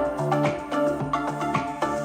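Music with steady pitched melody notes over a bass line, played through a Sony SRS-XB31 Bluetooth speaker.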